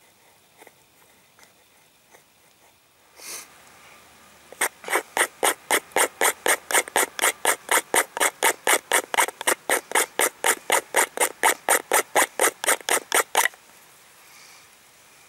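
Knife blade scraping a dry wooden stick in rapid, even strokes, about four a second, for roughly nine seconds, raising very fine, wool-like shavings as fire tinder. The scraping starts about four and a half seconds in and stops sharply near the end.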